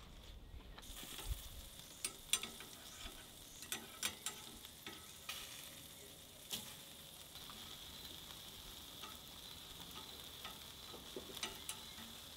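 Meat skewers and bacon sizzling on a charcoal grill: a faint, steady hiss with scattered pops and crackles, setting in about a second in.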